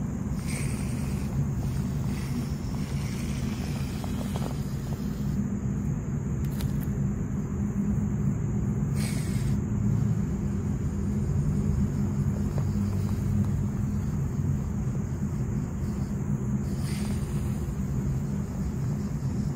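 Custom 1/24-scale SCX24-style RC rock crawler's small electric motor and geared drivetrain running with a steady low hum as it crawls slowly over concrete rubble, swelling slightly about halfway through. A few faint scrapes come from the tyres and chassis on the rock.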